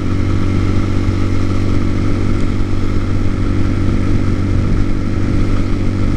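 TaoTao TBR7 dirt bike's single-cylinder four-stroke engine running steadily at a constant cruising speed of about 45 mph.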